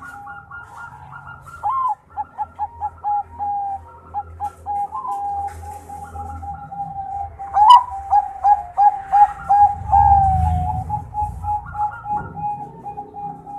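Bangkok-bred zebra dove (perkutut) singing: long runs of quick, evenly repeated coos on one pitch, broken by a few upswept notes and one longer drawn-out coo past the middle.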